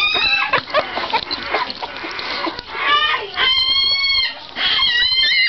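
Newborn Labrador retriever puppy squealing in a string of short, high-pitched cries, with one longer, steady cry about halfway through.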